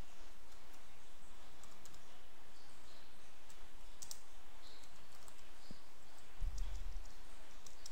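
Scattered key clicks of typing on a computer keyboard, with a dull low thump near the end.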